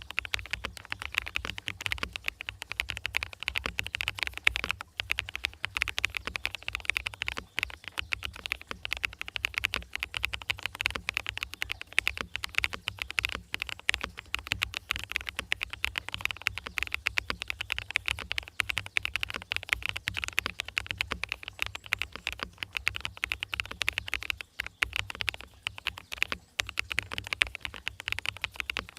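Continuous fast typing on a mechanical keyboard, a Geon Works Frog with fully lubed Haimu Sea Salt switches: a dense, unbroken stream of keystroke clicks. A steady low rumble runs beneath.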